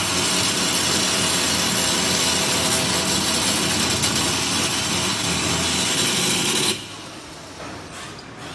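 Massage chair's electric actuator motor running steadily for about seven seconds, then cutting off abruptly.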